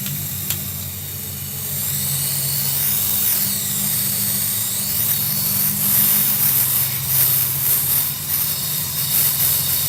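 Gas torch flame hissing steadily while welding a punctured refrigerator evaporator with aluminium filler, over a steady low hum.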